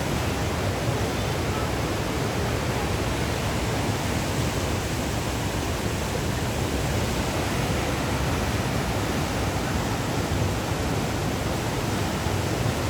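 Steady rushing of river water, an even hiss and roar that does not change.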